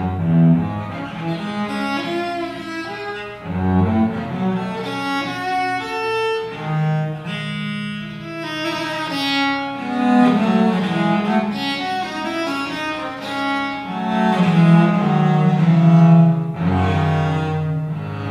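Viols (viola da gamba) bowing a fast baroque allegro, a quick run of notes with several voices sounding together, swelling louder near the end.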